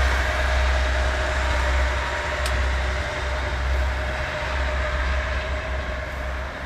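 Two-car KiHa 110 diesel railcar set running, its diesel engines rumbling steadily while the sound slowly fades.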